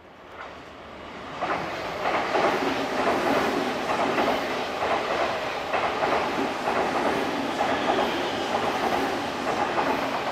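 An Odakyu Line electric train passing a level crossing, its wheels clattering over the rail joints. The sound swells over the first second and a half and then holds steady.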